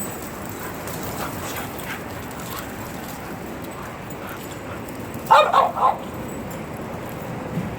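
A dog barks two or three times in quick succession about five seconds in, over steady background noise.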